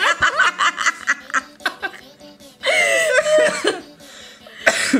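A man and a woman laughing hard in quick bursts that die down after about two seconds, then a longer laugh about three seconds in and a short cough near the end.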